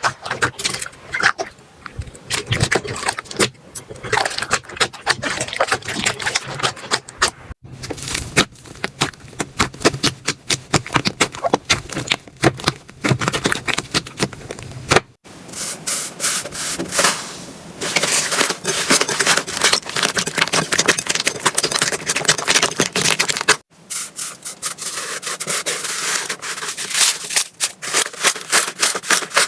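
Slime being pressed, squished and stretched by hand, giving dense crackling, popping and sticky clicking sounds. The texture changes abruptly three times as one slime gives way to another.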